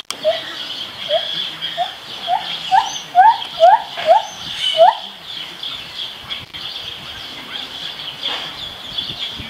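Gibbon hooting: a run of about nine short rising whoops that climb in pitch, grow louder and come faster, then stop about five seconds in.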